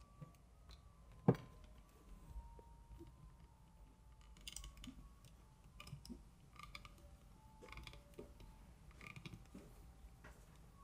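Faint clicks from a toy being handled, with one sharp click about a second in and a few faint short tones.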